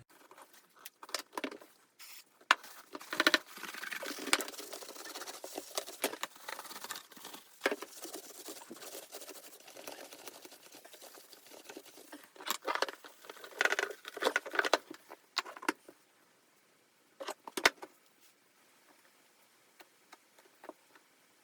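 Hands refitting the outer panels of a drum washing machine: irregular clatter of sharp clicks and knocks with bursts of rustling and scraping, busiest in two stretches, a couple of clicks about three-quarters of the way through, then nearly quiet.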